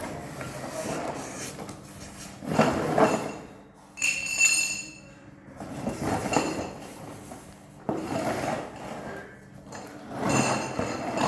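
Items being unpacked and handled: a run of rustling, scraping and knocking of parts and packaging, with a brief ringing clink about four seconds in.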